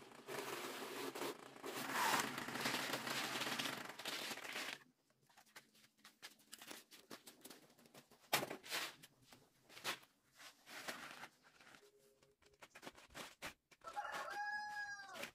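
Dry shredded strips scraped and rustled as they are raked across a plastic tarp for about five seconds, then quieter rustling and a few sharp clicks from hand-spreading. A rooster crows once near the end.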